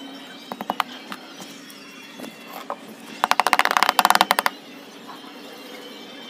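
Dry, packed potting soil being broken off an aloe vera root ball by hand, crumbling and falling onto brick paving: a few scattered crackles, then a dense run of crackling and pattering about three seconds in.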